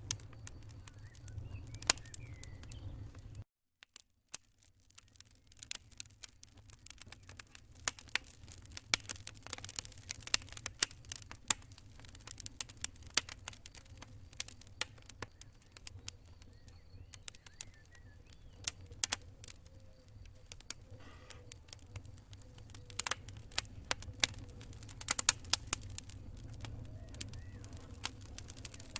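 Fireplace wood fire crackling: irregular sharp pops and snaps over a low rumble. The sound cuts out briefly about three and a half seconds in, then the crackle comes back.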